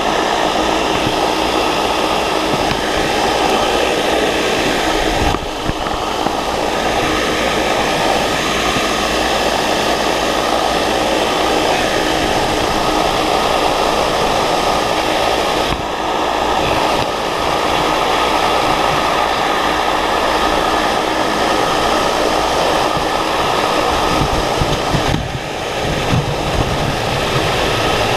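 Steady rush of air from an open-air vertical wind tunnel fan blowing upward, with wind buffeting the microphone. It dips briefly three times.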